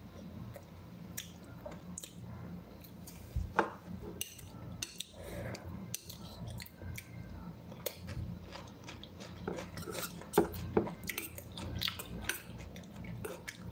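Metal fork clicking and scraping against a small ceramic bowl while someone chews raw tomato and cucumber, with a few sharper clinks about three and a half seconds in and again around ten to eleven seconds.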